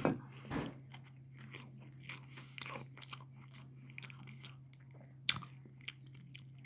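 Chewing a mouthful of turkey sandwich: soft, irregular mouth clicks and crunches, with a louder one at the start and another about five seconds in.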